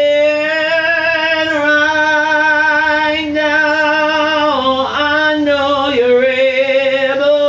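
A single voice singing long, drawn-out held notes, with pitch dips partway through and at the end.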